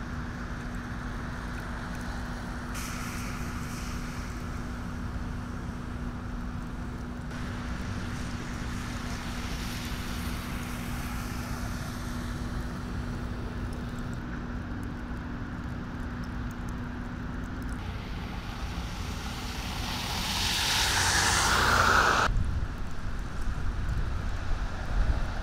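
Road traffic noise, steady, with a low hum in the first part. Near the end a vehicle passes close, getting louder and then cutting off suddenly.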